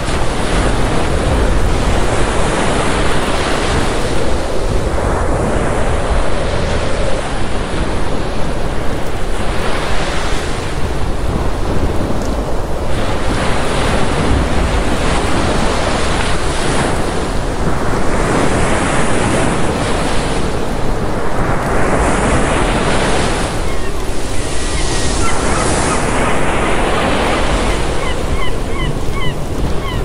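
Ocean surf breaking and washing in, swelling and easing every few seconds, with a steady low rumble of wind on the microphone.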